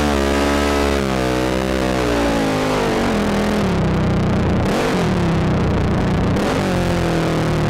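ATV engine running under throttle, its pitch falling over the first few seconds, then holding steadier with short rises twice near the end.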